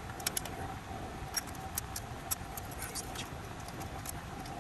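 Irregular light clicks and ticks from hands working around the copper refrigerant lines and the TXV's capillary tube and sensing bulb, over a steady background hum.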